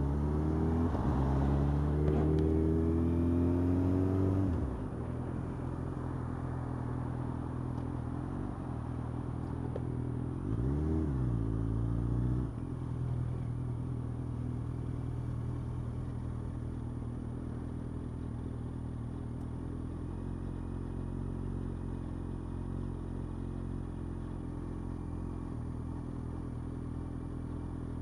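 Yamaha FZ8 inline-four motorcycle engine accelerating with rising pitch through the gears for about four seconds, then easing off. About ten seconds in it rises and falls once in a short throttle blip, then settles into a steady idle while stopped.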